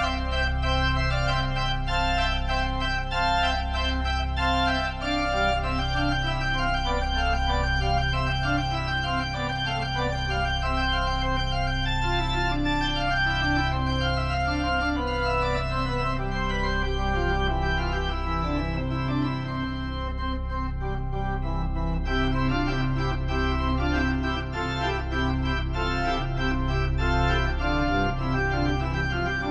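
Organ playing the closing postlude: held chords over a deep bass line that changes note every second or two.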